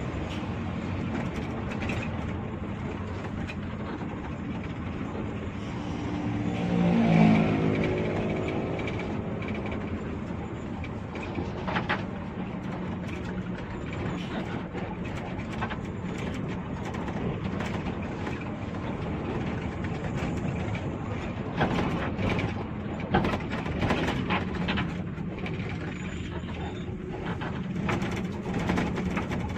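Cabin sound of a Hino RG1J bus under way: the diesel engine runs steadily under road noise, with scattered knocks and rattles from the body. About seven seconds in, a loud pitched tone swells for about two seconds.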